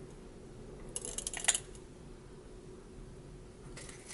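Small clicks and scrapes of a metal lipstick tube and its cap being handled by hand: a quick cluster of clicks about a second in, the last one the loudest, and a faint click near the end, over a faint steady room hum.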